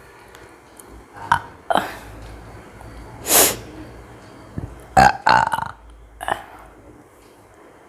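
A woman burping repeatedly: a run of about six separate burps, mostly short, with a longer, louder one about three seconds in.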